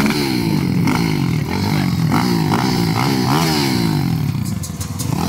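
190cc SYX pit bike engines revved in quick throttle blips, the pitch climbing and dropping about twice a second.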